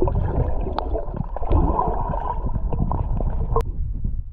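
Muffled rushing and gurgling of river water heard from underwater, dull and heavy with the highs cut away, as a camera submerged in a waterproof housing picks it up. The sound drops to a quieter rush at a cut near the end.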